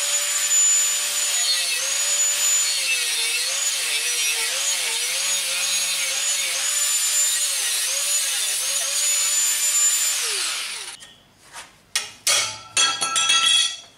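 Angle grinder cutting steel held in a bench vise, its whine dipping in pitch again and again as the disc bites, then winding down about ten seconds in. A few sharp metallic knocks and clinks follow near the end.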